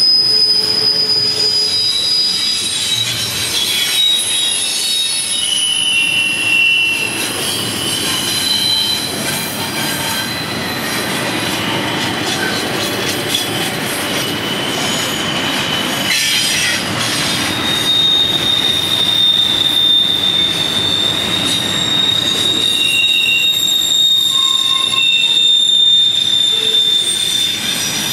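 Wheels of a passing intermodal freight train squealing against the rail through a curve: several high-pitched squeals at different pitches come and go, one held through the last ten seconds, over the steady rumble of the rolling cars.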